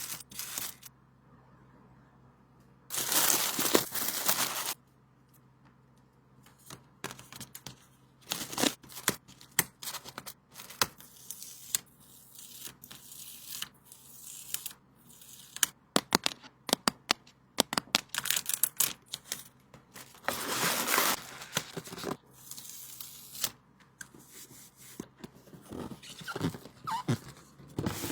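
Hands packing sticker orders: two long ripping sounds, about three seconds in and again around twenty seconds, with plastic and paper crinkling and many quick taps and clicks between them.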